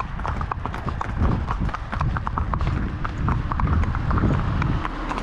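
Horses' hooves clip-clopping at an uneven pace of several hoofbeats a second, over a low rumble.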